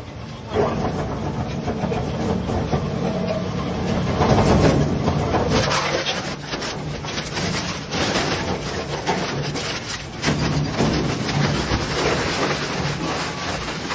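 Industrial shredder tearing up a motor scooter's plastic bodywork and frame: continuous grinding with many sharp cracks and snaps, loudest about four to five seconds in.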